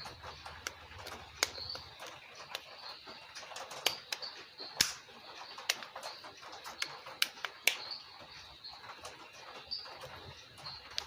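Irregular small sharp clicks and taps of plastic and metal phone parts being handled with tools while a tight replacement power-button knob is fitted into a Samsung Galaxy J3. Faint short high chirps repeat in the background.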